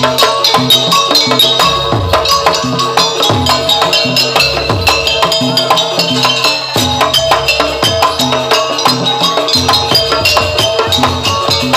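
Live gamelan-style ensemble music accompanying a jaranan barong performance: drums and tuned percussion play a busy, steady rhythm, with repeated low drum strokes under sustained pitched tones.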